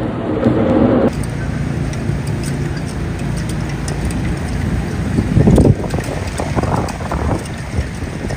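A motor vehicle running amid wind noise, with a few louder swells in the second half.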